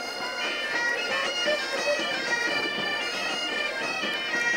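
A marching pipe band's bagpipes playing a tune together, several pipers at once, the notes changing quickly over a continuous sound.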